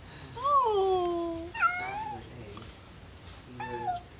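Domestic cat howling: three drawn-out meows. The first is long and rises then slides down, a second higher one comes about a second and a half in, and a short falling one comes near the end. The owner takes the howling as the cat wanting to be let into the basement, not as hunger.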